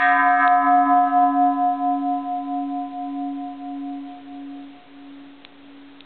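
Bronze Japanese Buddhist temple bell cast in 1805, ringing after one very light strike on the edge. It rings with a clear low hum and several higher overtones. The higher overtones die away within a few seconds while the hum keeps ringing, wavering slowly in loudness.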